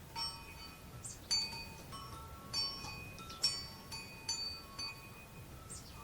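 Wind chime ringing in irregular strikes, several clear high tones struck and ringing on for a moment each, with two or three strikes close together in places. Under it, a faint steady hiss of fine drizzle.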